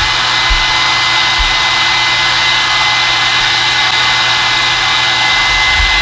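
Small hand-held hair dryer running steadily on its high setting, a loud even rush of air with a thin high whine, drawing just over 11 amps.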